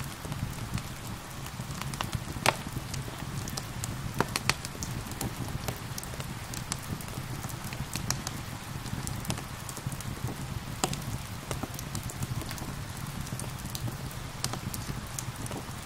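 Wood fire crackling, with sharp pops at irregular moments, over a steady hiss of gentle rain.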